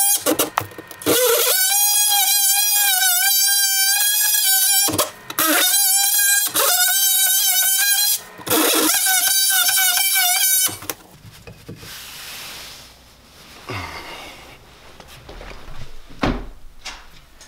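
Oscillating multi-tool cutting through drywall: a high, steady whine that wavers a little under load, run in four bursts with short stops between, then switched off about eleven seconds in. Quieter rustling and handling of the cut panel follow.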